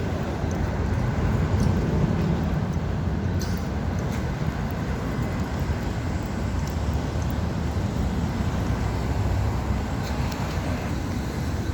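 Steady low rumble of vehicle traffic and road noise.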